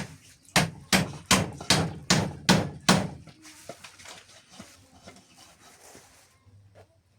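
Hammer blows in a steady run, eight loud strikes about two and a half a second, then lighter, irregular knocks fading off.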